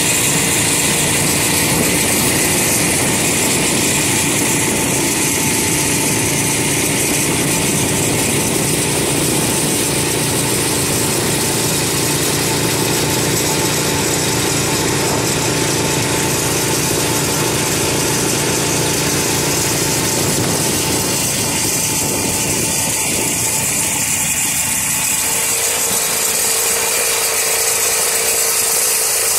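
Several snowmobile engines running at once, a steady mechanical drone with no single machine standing out; the deeper part of the drone drops away near the end.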